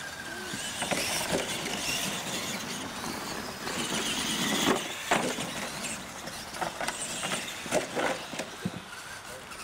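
Radio-controlled monster trucks racing over dirt, their motors whining and tyres scrabbling, with sharp knocks as they hit ramps and car bodies: the loudest about five seconds in and again around eight seconds in.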